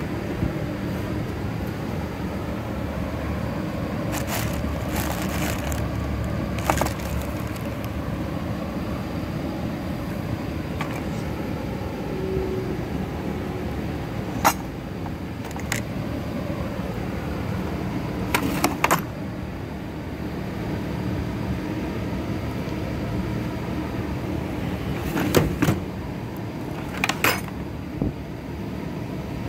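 Metal tool chest drawers being opened, with several short clanks and rattles of the metal tools inside shifting, over a steady low background rumble.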